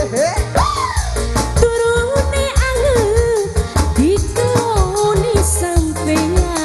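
Live band music for a regional dangdut song: an ornamented melody line slides and wavers over a steady bass line and a drum beat.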